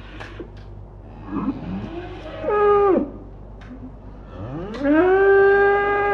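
Cows mooing: a short moo with a falling end about two and a half seconds in, then a long moo that rises and holds steady pitch through the last second and a half.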